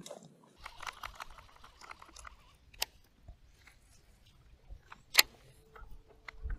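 Faint handling noise of fishing tackle on a boat deck, with a few sharp clicks, the loudest about five seconds in, and a faint steady hum starting near the end.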